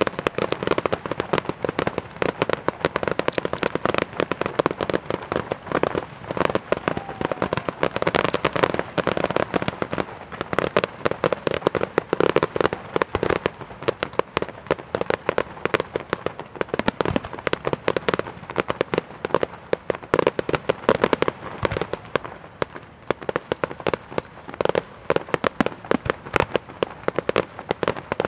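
Fireworks display: a dense, unbroken barrage of bangs and crackling from aerial shells and crackling stars, beginning suddenly.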